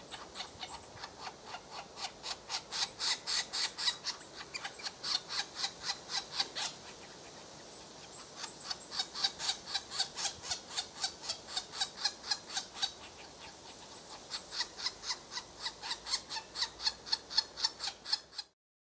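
European green woodpecker nestlings begging from inside the nest hole: a long run of short, rapid rasping calls at about five a second. The calls pause for a couple of seconds about a third of the way through, then resume and cut off suddenly near the end.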